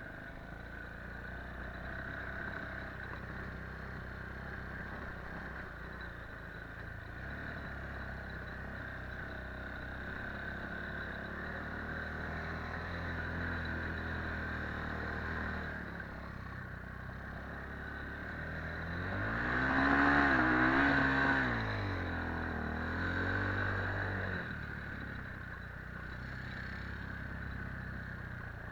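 Rollei 425 off-road quad running with a steady whine, speeding up about two-thirds of the way through, easing briefly and picking up again before settling back.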